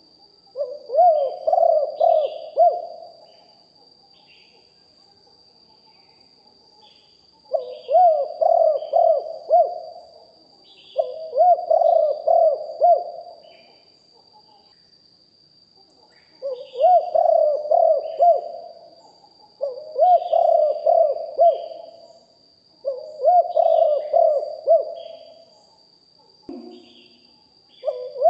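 Spotted dove singing its cooing song: about six phrases of quick coo notes, each lasting a couple of seconds, with pauses between them. Faint short chirps from small birds and a steady faint high whine run underneath.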